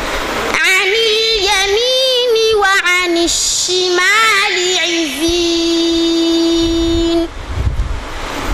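A boy's voice chanting Qur'anic recitation (tajwid) in a melodic, ornamented style, with pitch turns and a long held note about five seconds in. The voice pauses near the end.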